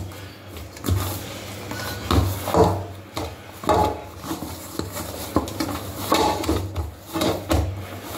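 Hands kneading cornmeal-and-flour dough in a stainless steel bowl: irregular dull knocks and scrapes of dough against the bowl, roughly one a second, some with a short metallic ring.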